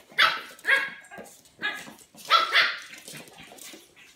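Pug puppy barking in short, sharp barks, about five in two quick bursts.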